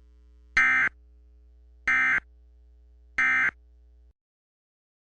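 Emergency Alert System end-of-message data bursts: three short bursts of warbling digital data tones, each about a third of a second long and a little over a second apart, with a low steady hum from the AM broadcast underneath. The three bursts mark the end of the alert message. The audio cuts off about four seconds in.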